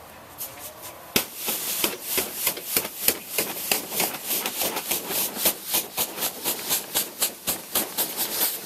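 Snow being cleared by hand in quick repeated brushing or scraping strokes, about four or five a second, starting about a second in.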